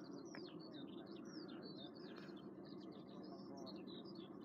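Small songbirds chirping and warbling continuously in quick, high notes, faint, over a low steady background rumble.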